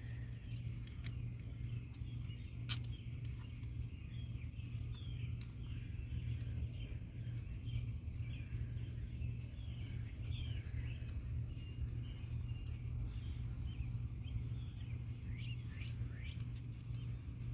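Birds chirping steadily in the background over a constant low hum, with one sharp click about three seconds in.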